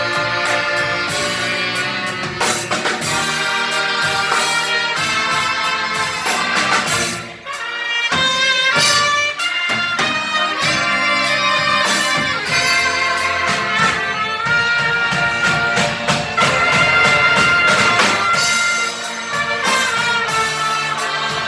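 Orchestra playing a hymn, brass prominent on the melody over held chords. It stops briefly about seven seconds in, between phrases.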